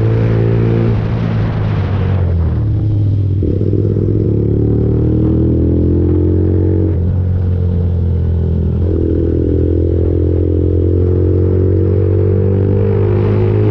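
Lexmoto Viper 125's single-cylinder 125cc four-stroke engine running under way, with wind rush on the microphone strongest in the first two seconds. The engine note sinks about two seconds in, then climbs steadily and drops back sharply twice, about seven and nine seconds in, as the rider shifts up a gear.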